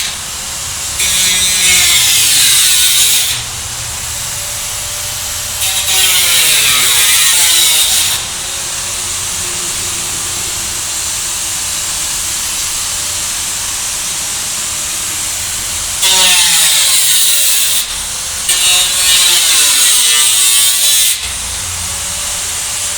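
Handheld power tool cutting in four bursts of two to three seconds each, its pitch rising and falling within each burst, with a steady hiss between the cuts.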